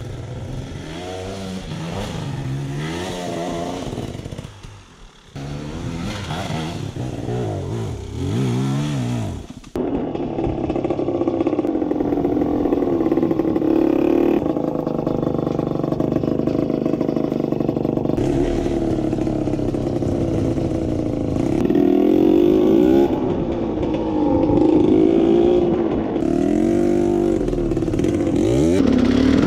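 Dirt bike engine revving, its pitch rising and falling again and again. The sound breaks off abruptly twice in the first ten seconds, then runs on louder and steadier with the revs still going up and down.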